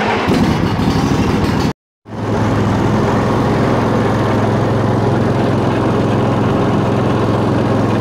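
Yard Machines riding lawn mower engine running at a steady speed as the mower is driven across the grass, with a constant low hum. The sound breaks off for a moment about two seconds in, then carries on unchanged.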